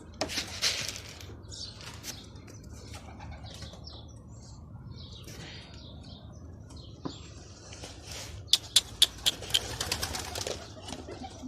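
Domestic pigeons flapping their wings as they are let out, with a rustle near the start and a quick run of sharp wing claps about eight seconds in.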